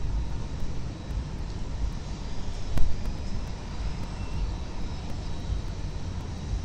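Uneven low outdoor rumble of wind and city background noise on the microphone of a falcon nest camera on a high-rise ledge, with a single sharp click about three seconds in.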